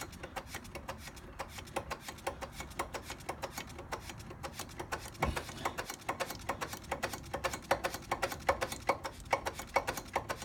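Rapid, irregular clicking, about five or six clicks a second, from the ZZR1400's rear brake being pumped quickly with the bleed nipple open. The reservoir has run dry, so the brake has no pressure and the master cylinder is drawing in air.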